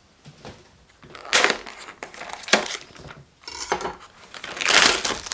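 Plastic meat tray and its film lid crinkling and crackling as they are handled, in a few short bursts with a longer one near the end.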